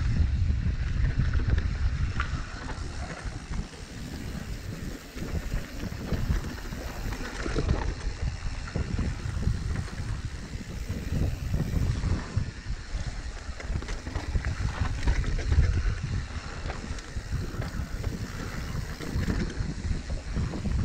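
Wind buffeting the microphone on a mountain bike descending a rooty dirt trail, a rough rumble that swells and fades, with the tyres and bike rattling over the ground in scattered clicks.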